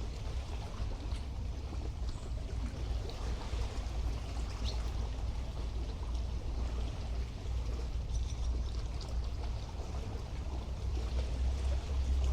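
Sea water lapping and washing at the shore of a bay, a steady churning splash with a constant low rumble underneath.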